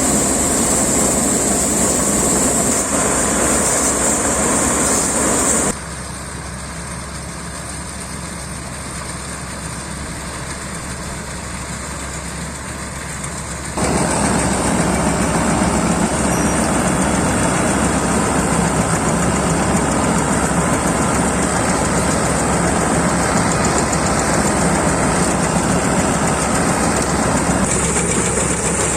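Rice combine harvester running steadily, its engine and cutting and threshing machinery making a continuous mechanical drone. It drops abruptly quieter about six seconds in and comes back as abruptly about fourteen seconds in.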